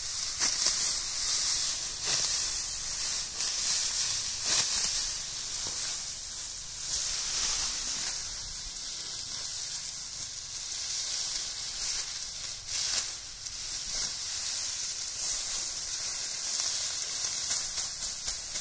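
Outdoor field ambience: a steady high-pitched hiss, with a few brief rustles now and then.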